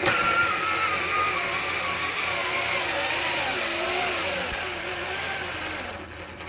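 Milwaukee cordless drill in low gear, its motor and gearbox running under heavy load as it drives a lag bolt into a Douglas fir 4x4. The pitch sinks slowly as the bolt goes deeper, and the drill cuts out near the end as it stalls.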